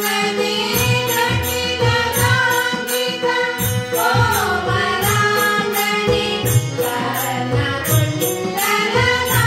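A group of women sing a devotional bhajan in unison over a harmonium's held chords. Drum strokes and small hand cymbals (manjira) keep a steady beat, the cymbals clashing about two to three times a second.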